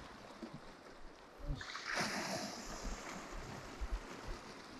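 Sea waves washing against a rocky shore, with a louder hissing surge of water starting about a second and a half in.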